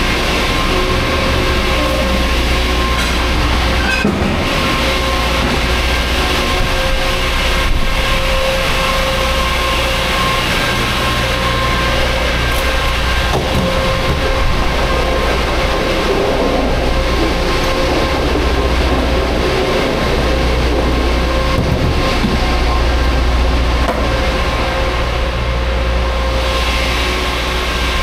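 Semi truck running: a steady low drone with a couple of steady tones over it.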